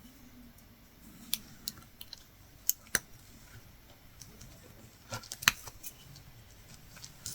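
Scattered small, sharp clicks and ticks of hand latch hooking: the metal hook and its latch working yarn through the mesh canvas, irregular and a few per second at most, with a pause in the middle.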